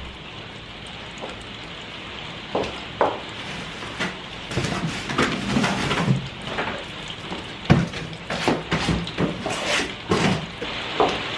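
Heavy rain falling steadily, with irregular knocks, clicks and rustles of bulb packets and garden tools being handled and set down, busiest in the second half.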